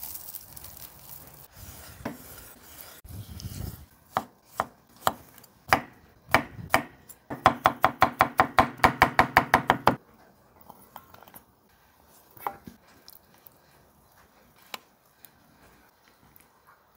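Chef's knife chopping pickles on a wooden end-grain cutting board. It starts with a few separate cuts, then chops fast and evenly at about six or seven strokes a second for a few seconds, then stops.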